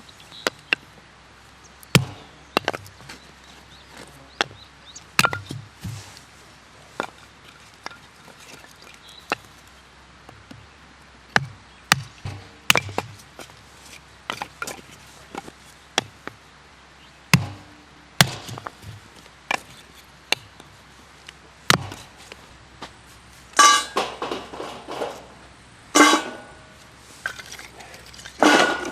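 Firewood being chopped and snapped into kindling for a small campfire: irregular sharp cracks and knocks every second or two, with a longer rattling clatter near the end.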